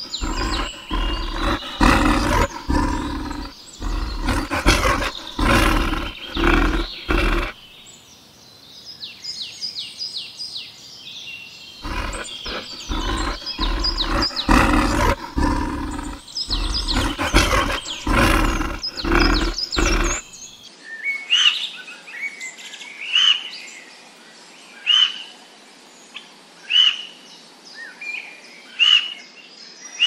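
Asiatic black bear calling in short, loud, repeated roars, in two bouts, with a bird chirping rapidly in the gap between them. In the last third, a bird repeats a short chirp about every two seconds.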